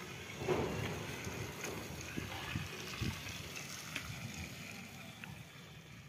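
Battery-operated toy train's small motor whirring as the engine runs around a plastic track, with a few scattered light clicks. It gradually fades near the end.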